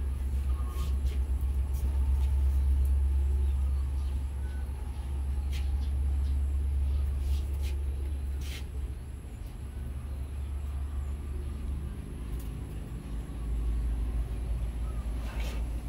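Steady low rumble of a large vehicle's engine running, with a few short reversing beeps in the first second. A few sharp clicks are heard later on.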